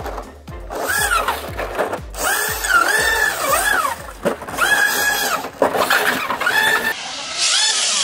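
Electric motor of an RC monster truck whining as the throttle is blipped, rising in pitch, holding and falling again several times while the truck lies on its side with its wheels spinning free. A steady low beat of background music runs underneath.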